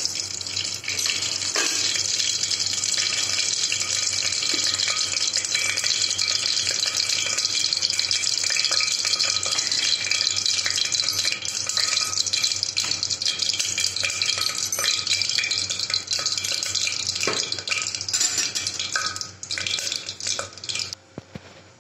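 Cooking oil heating in an aluminium pressure cooker, sizzling with a steady, fine crackle, then dying down near the end.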